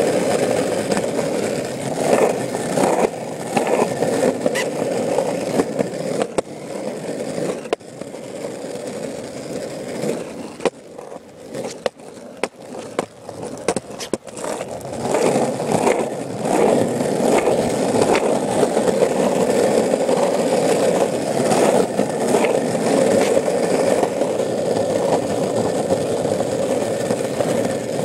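Old Variflex skateboard on soft longboard wheels rolling over asphalt: a steady rolling rumble. The rumble eases for a few seconds in the middle, with a few clicks, then comes back up to full strength.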